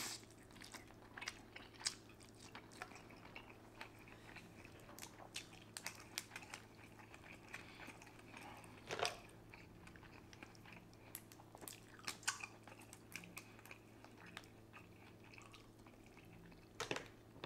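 Close-miked chewing of seafood-boil prawn: faint wet mouth clicks and smacks, with a louder one about nine seconds in and another near the end, over a faint steady hum.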